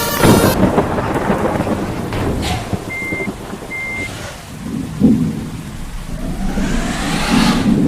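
Bus running with steady engine and road noise. Two short high electronic beeps come about three and four seconds in, and a rising whine builds near the end.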